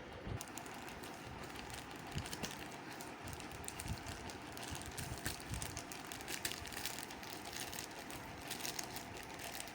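Parcel packaging being opened by hand, with irregular small crackles and clicks.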